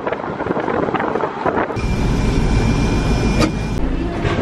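Car driving along a road, its engine and road noise heard from inside the cabin; the low rumble comes in about two seconds in.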